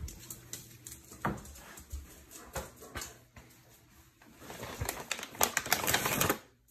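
Scattered clicks and knocks, then about two seconds of crinkling as a plastic bag of dog treats is handled on the shelf, stopping suddenly near the end.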